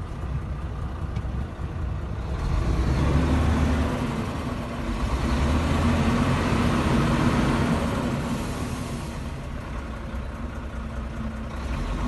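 Volvo FH13 truck's diesel engine running rough with a knock from inside the engine, revved up twice, swelling about two and a half seconds in and again around five seconds before settling back. The engine is failing, with coolant getting into it.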